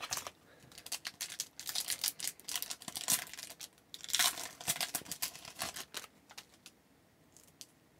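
A hockey card pack's wrapper being torn open and crinkled, with cards rustling, in dense irregular crackles through about the first six seconds, then a couple of light ticks.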